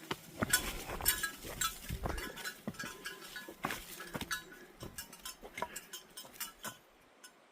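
Footsteps of a hiker walking downhill on a dirt forest trail: a run of short, uneven steps with light metallic clinking, stopping near the end.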